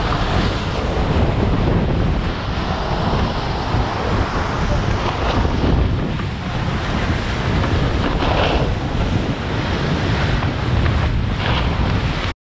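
JPK 1080 racing sailboat's hull rushing through the water at speed under spinnaker, spray hissing past, with heavy wind buffeting on the microphone. The rush swells a couple of times and cuts off suddenly at the very end.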